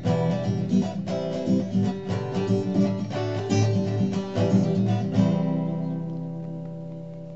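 Acoustic guitar strummed in a busy rhythm, ending about five seconds in on a final chord that is left to ring and slowly fades away.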